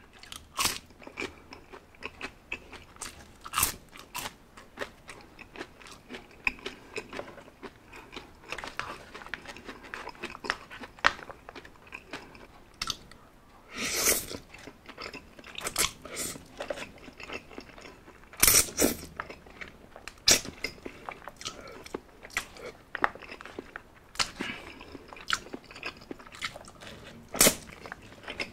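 Close-miked eating: crisp bites and chewing of fried apple pie crust, then spaghetti being slurped in and chewed, with wet mouth smacks. There are two longer slurps, about halfway through and a few seconds later.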